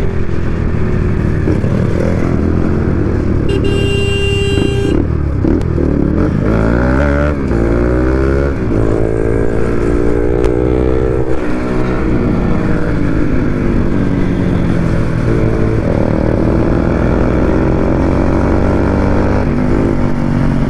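Bajaj Pulsar RS200's single-cylinder engine revving under throttle, its pitch climbing in several long rises and dropping back between them. A brief steady tone sounds about four seconds in.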